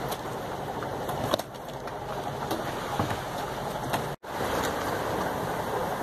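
Steady rush of wind and sea water around a sailing yacht under way in open ocean, with a few faint clicks. It drops out briefly about four seconds in, then comes back a little louder.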